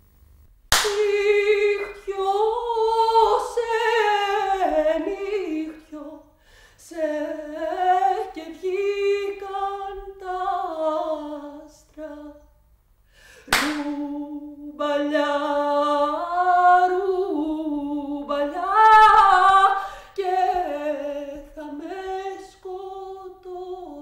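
A woman singing solo, unaccompanied, a slow melody of long held notes in two phrases, the second beginning about halfway through.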